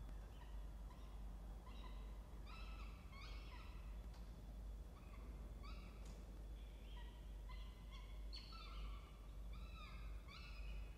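Peregrine falcon nestlings begging during a feed: a string of short, high, slightly falling calls that come in clusters, over a low steady hum.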